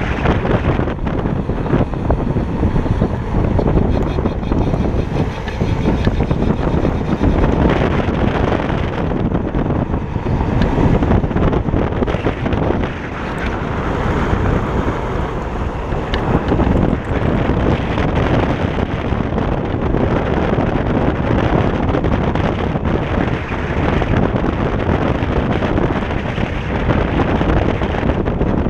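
Wind buffeting the microphone of a camera riding low on a moving Kaabo Wolf King GT electric scooter, mixed with the scooter's tyre and road noise on asphalt: a steady, loud rush.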